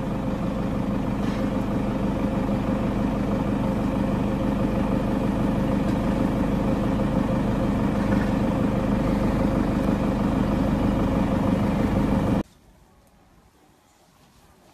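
A motor vehicle engine idling at a steady, unchanging pitch. It stops abruptly about twelve seconds in.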